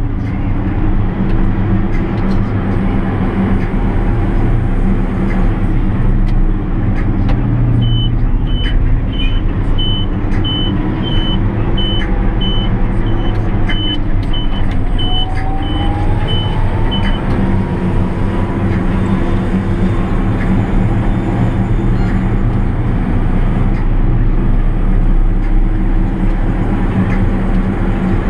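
JCB Fastrac 8310 tractor's diesel engine running steadily under way, heard from inside the cab. Midway, a cab beeper sounds short high beeps about twice a second for about nine seconds, while a faint whine slowly rises in pitch.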